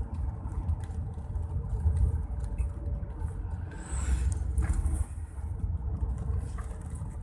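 Steady engine and road rumble heard inside a moving car's cabin, with scattered faint ticks and a brief hiss about four seconds in.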